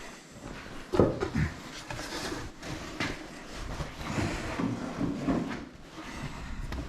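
Things being handled and moved during cleanup: a sharp knock about a second in, a second one just after, then irregular clattering and scraping.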